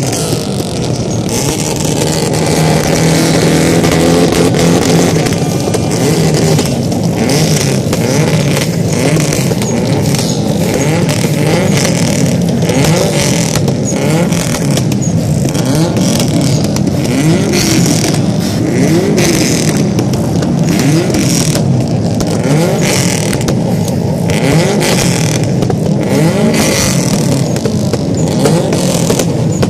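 Many Subaru flat-four engines running together and revving, their pitches overlapping and rising and falling throughout.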